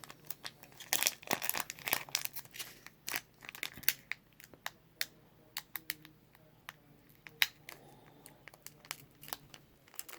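Foil Pokémon trading-card booster packs crinkling and tearing as they are handled and pulled open: irregular sharp crackles, dense for the first few seconds and sparser after.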